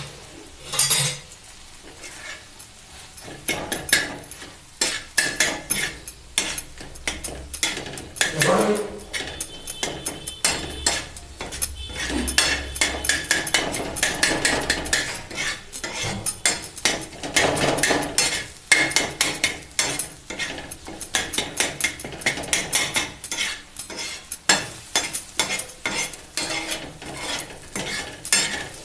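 Metal spatula tapping and scraping on a large iron tawa, mashing and turning chickpeas and tomatoes as they cook; quick, irregular clacks, several a second.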